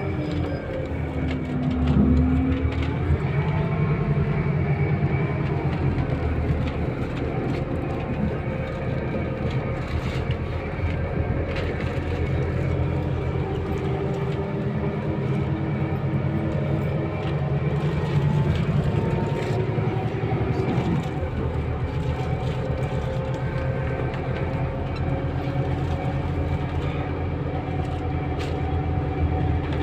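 Scania K320UB city bus's diesel engine and driveline heard from inside the passenger cabin while the bus is driving, the engine note rising and falling several times as it accelerates and changes gear, with light rattles from the body.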